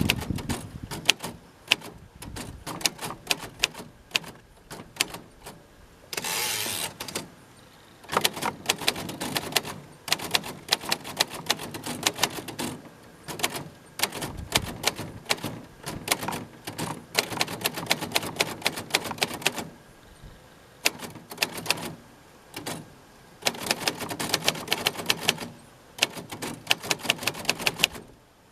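1948 Royal Quiet DeLuxe manual portable typewriter being typed on: runs of rapid, sharp keystroke clicks broken by short pauses. About six seconds in, a brief rattling sweep sounds as the carriage is returned.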